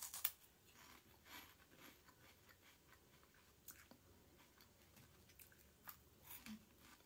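Faint crunching of a puffed cheese curl: a crisp bite at the start, then chewing with scattered small crunches, and another bite and crunch near the end.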